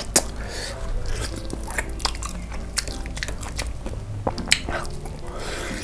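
Close-miked biting and chewing of sauced fried chicken, with a few sharp crunches of the crispy coating, the loudest just after it begins and again about four and a half seconds in.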